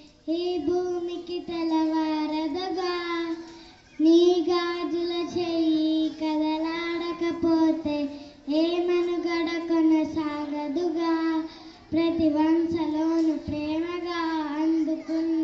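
A young girl singing solo into a microphone, with no instruments, in long held phrases broken by short pauses for breath about 4, 8 and 12 seconds in.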